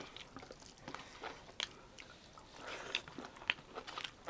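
A person chewing a mouthful of rice and curry up close, with irregular short crunches and wet mouth clicks.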